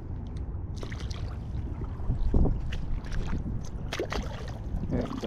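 Wind rumbling on the microphone over shallow water at the shore, with several short splashes and clicks as a small stingray is unhooked with pliers and splashes free in the shallows.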